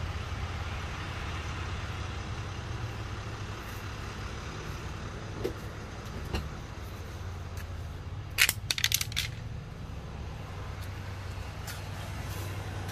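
Truck engine idling steadily, with a quick cluster of sharp metallic clicks and clinks about eight seconds in.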